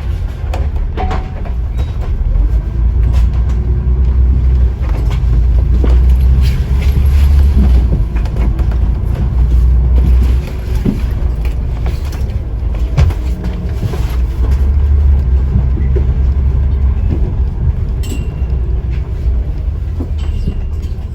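Scania N94UD OmniDekka double-decker bus under way, heard from inside: a deep engine drone and road rumble with scattered rattles, growing louder twice as it pulls harder.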